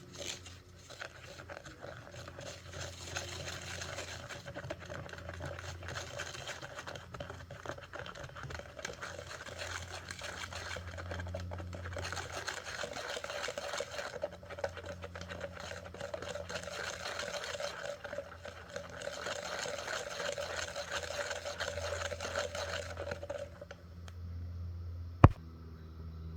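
Slime being worked by hand: a continuous wet, crackly squishing that stops about three seconds before the end. A single sharp click follows about a second later.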